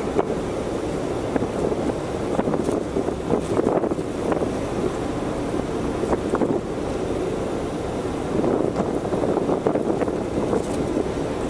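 Wind buffeting the microphone on the open deck of a car ferry under way, over a steady rush of the ship's wash. Short gusts break through again and again.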